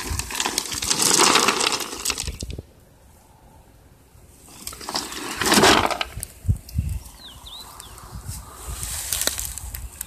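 Grass rustling and gravel crunching close to the microphone in irregular bursts, quiet for a moment near the start, with a few short high bird chirps about seven seconds in.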